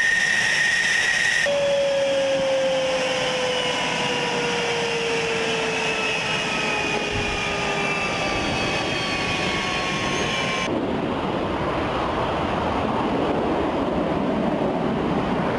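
F-16 jet engine whining steadily, then running down with its pitch falling slowly over several seconds as it spools down after shutdown on the ground. Near the end the whine cuts off and an even rushing noise takes over.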